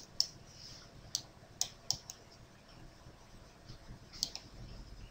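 A handful of faint, sharp computer mouse clicks, spaced irregularly.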